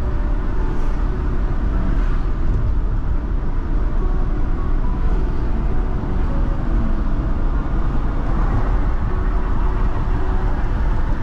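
Car driving on city streets: a steady low rumble of road and engine noise.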